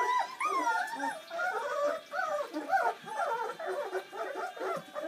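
A litter of three-week-old Bernese Mountain Dog puppies whimpering and whining at once, many short rising-and-falling calls overlapping.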